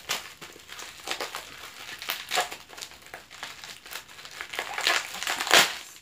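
Thin clear plastic packaging crinkling and crackling as hands pull it open, in irregular bursts, with the loudest crackle just before the end.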